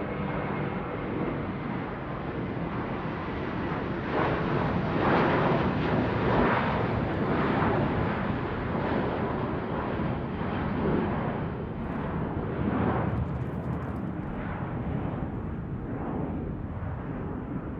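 Airplane flying overhead: a rushing engine rumble that swells to its loudest about five to eight seconds in, then slowly eases off.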